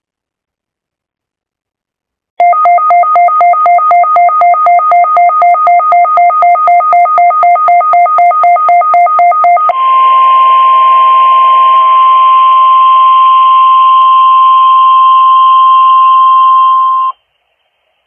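NOAA Weather Radio test signal: rapid electronic beeping of several tones together, about four beeps a second for some seven seconds, then the steady 1050 Hz warning alarm tone over radio hiss for about seven seconds, cutting off abruptly.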